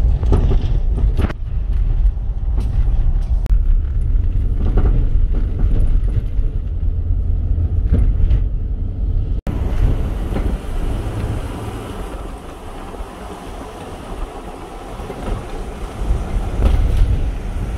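Nissan Pathfinder V8 driving on a rough rural road, heard from inside: a steady low rumble of tyres and drivetrain with occasional knocks from bumps. About nine seconds in it cuts to a brighter, steady hiss of wind rushing past the microphone at an open side window.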